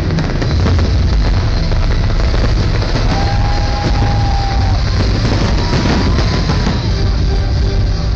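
Fireworks bursting and crackling over loud electronic dance music, the sound dense and steady through a phone's microphone, with two held whistling tones in the middle.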